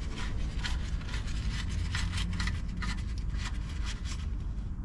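Oil drain plug being threaded into the oil pan by hand: light, quick scraping and rubbing strokes, several a second, over a steady low rumble.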